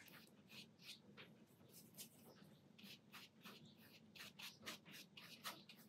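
Faint swishes of a round watercolour brush on paper: an uneven run of short strokes, two or three a second, as a wash is laid in.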